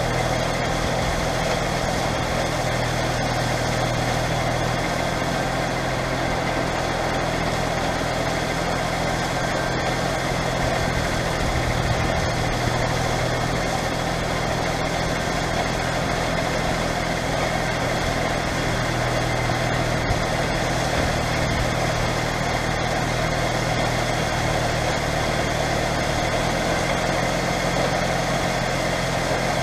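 JCB Fastrac 3230's Cummins diesel engine running steadily at a constant pitch, with the hum of a working combine harvester mixed in.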